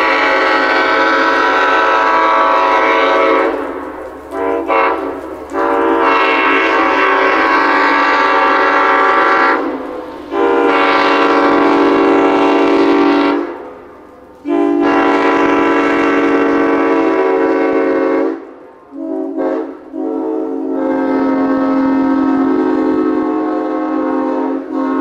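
Nathan Airchime M5 five-chime train horn sounding a chord in a string of long blasts of about three to four seconds each. There are quick short toots a few seconds in and again a little before the last blast, which runs on to the end.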